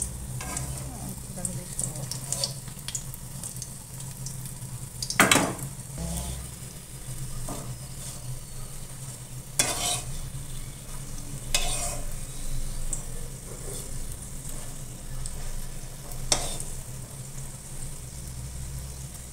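Pumpkin 'veg egg' balls sizzling as they shallow-fry in a little oil in a kadai, with a spatula scraping the pan as it turns them, four times, loudest about five seconds in.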